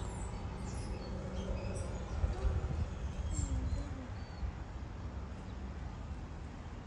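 Wild birds chirping, with several short high chirps over the first four seconds, over a steady low rumble of wind on the microphone.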